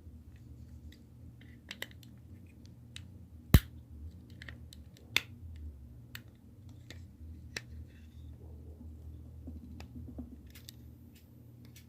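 Small plastic clicks and taps from a flathead screwdriver prying at the clips of an old Mercedes W124/W201 seat adjustment switch housing, with one sharp, loud click about three and a half seconds in and another just after five seconds.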